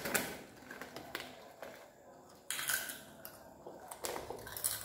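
Plastic snack packets rustling and crinkling as they are handled, in a few separate bursts.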